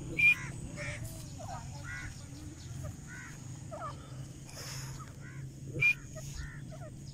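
Birds calling: two loud, short sharp calls, one just after the start and one about six seconds in, with many fainter short calls between them over a steady low hum.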